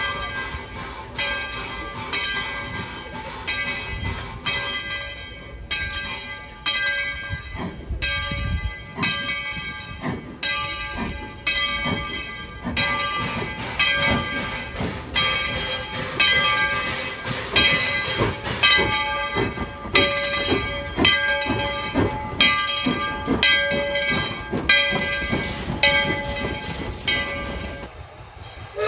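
The bell of Engine 12, a 1917 Baldwin 4-6-0 steam locomotive, ringing steadily at about one and a half strokes a second as the engine rolls slowly forward, over the low running sound of the locomotive.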